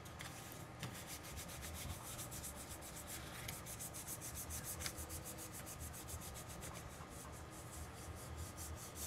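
Faint, steady scuffing of hands rubbing back and forth over a textured adhesive 3D-printer build sheet, pressing it down onto a glass plate to push out air bubbles.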